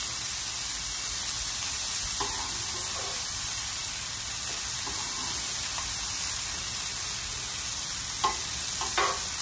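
Green beans and brisket sizzling on a hot Blackstone flat-top griddle: a steady frying hiss. Metal tongs clink and scrape on the griddle a few times as the beans are turned, most sharply near the end.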